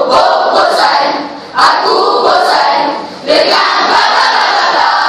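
A school choral-speaking group's many voices performing together in unison, with two short breaks about one and a half and three seconds in, each ended by a loud group entry.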